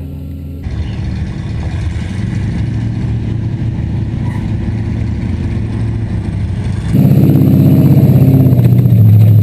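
A four-wheel-drive truck engine running steadily, then much louder and closer about seven seconds in.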